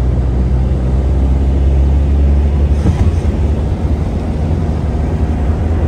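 Steady low engine and road rumble of a moving car heard from inside the cabin, with a brief knock about three seconds in.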